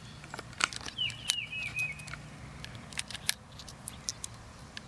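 Brass .38 Special cartridges clicking and clinking against each other and against the steel of a Rossi R351 revolver as they are pushed one at a time into the open cylinder. A short run of falling chirps comes about a second in.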